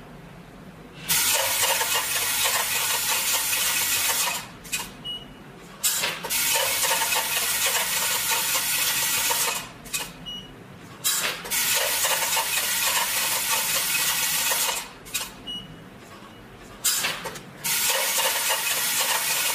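Automatic weighing and filling machine for powder and granules running through repeated fill cycles. Each cycle is a loud rushing noise of about three and a half seconds followed by a short quieter pause with a brief high blip. This happens four times, about every five seconds.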